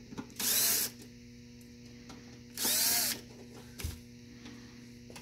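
Cordless drill-driver backing out the last two screws of a thermoelectric milk cooler's sheet-metal back plate: two short runs of about half a second each, two seconds apart, each winding up in pitch. A single light knock follows about a second after the second run.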